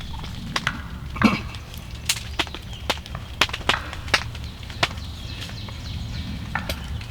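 Irregular sharp clicks and snaps, about a dozen, over a steady low rumble.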